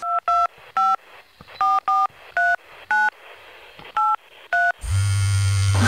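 Phone keypad touch tones: about nine short dual-tone beeps at an uneven pace as a number is dialed, then a steady low hum sets in just before the end.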